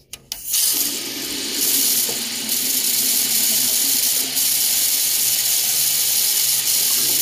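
Tap water running steadily into a bathroom sink, turned on about half a second in.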